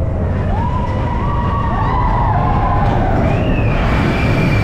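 Vekoma roller coaster train running along its steel track: a steady loud rumble of wheels and wind, with high whines over it that glide up and hold, and one steady high whine from about three seconds in.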